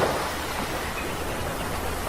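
Ocean surf in the lull between breaking waves: a steady hiss of washing water, with the next wave swelling up just after.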